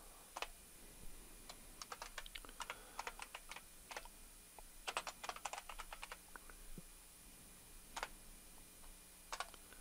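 Faint computer keyboard keystrokes, tapped in short irregular bursts with pauses between them as a line of text is typed.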